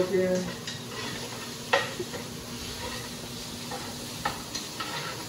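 Turkey sizzling in a skillet on the stovetop while it is stirred, with a steady frying hiss and a few sharp knocks and scrapes of the utensil against the pan, the loudest about two seconds in.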